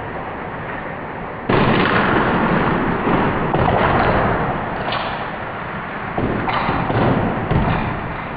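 Motorised Lego trains colliding and derailing: a sudden loud clatter of plastic about a second and a half in, then continued rattling and grinding with several louder knocks. Before the crash, the trains rumble steadily on the track.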